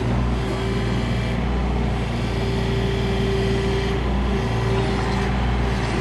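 XCMG mini excavator engine running steadily, with a higher whine that comes and goes.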